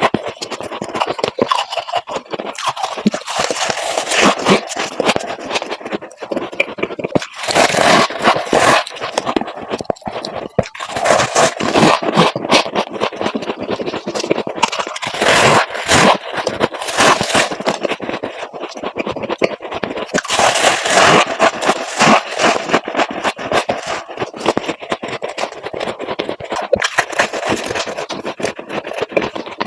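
Frost ice being scraped from the inside of a refrigerator freezer and crunched, a dense crackling scrape that comes in repeated surges.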